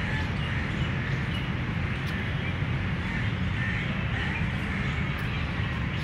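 Outdoor park ambience: a steady low rumble of distant city traffic with faint bird calls, including crows. Near the end a distant siren starts, its wail falling slowly in pitch.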